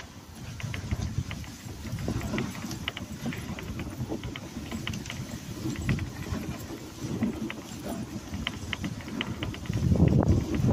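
Dog sled running over snow behind a team of Alaskan huskies: a steady scraping rumble of the runners, with the patter of the dogs' paws and many light clicks and jingles from the harness and sled chain. The rumble grows louder near the end.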